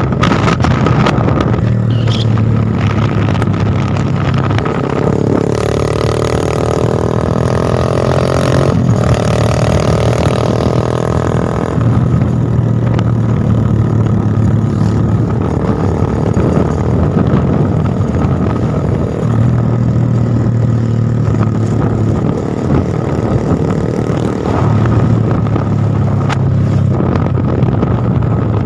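A motor vehicle engine running continuously, with a higher-pitched tone rising slightly for several seconds about five seconds in.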